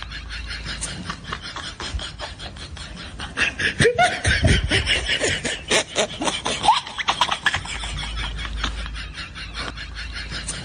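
People laughing and snickering, loudest from about three and a half to seven and a half seconds in.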